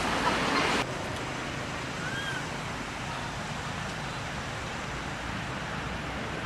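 Steady outdoor background hiss, like wind or distant traffic. A faint short chirp comes about two seconds in. A louder stretch with a few clicks cuts off near the first second.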